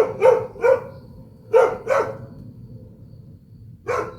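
A dog barking over and over in short, sharp barks: three in quick succession, then two more after a pause, and another near the end.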